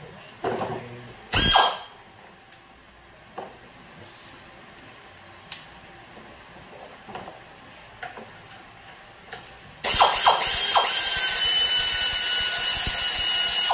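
Air-powered wrench on a Torx 40 bit, given one short blip about a second in, then run steadily for about four seconds near the end with a slightly falling whine as it spins out the idler pulley bolt.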